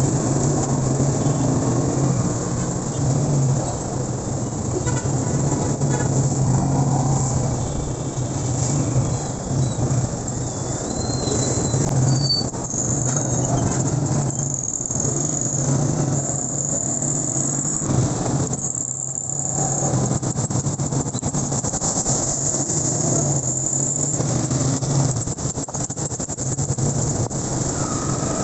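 Road traffic heard from a moving vehicle on a wet road: a steady low engine drone under continuous tyre and traffic hiss. A faint high whine comes and goes in the middle.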